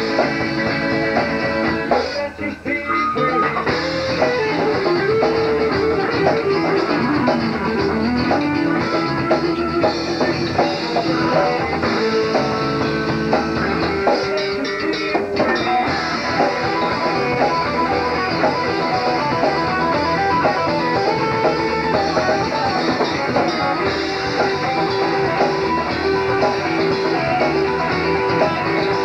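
Southern rock band playing: guitars over bass and drums, with bending guitar notes and a momentary drop in level about two seconds in.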